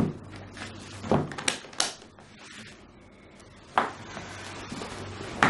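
Papers and a folder being handled on wooden furniture: a handful of sharp knocks and clacks, three of them in quick succession a little after a second in and another near four seconds, over a faint steady hum.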